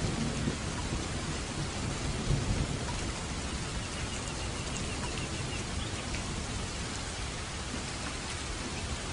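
Steady rain falling, with a low thunder rumble in the first few seconds that fades away.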